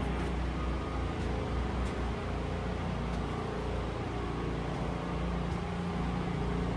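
Steady mechanical hum of running machinery with a low drone, with a few faint ticks over it.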